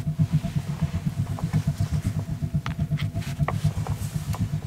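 A steady, fluttering low rumble runs throughout, with a few light clicks and taps of metal utensils being handled and set down on a canvas cloth over a wooden table.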